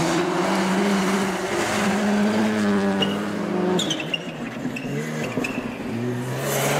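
A rally car's engine running at high revs, holding a near-steady pitch for nearly four seconds. It then drops off with a couple of sharp cracks and picks up again, rising near the end as the car accelerates.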